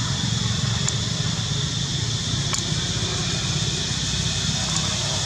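Steady low hum under a constant hiss, with a few faint short clicks.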